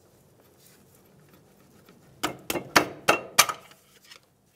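A quick run of sharp metal clinks and knocks, about six in just over a second, starting about halfway through, then a couple of faint ticks. Steel tools and suspension hardware being handled.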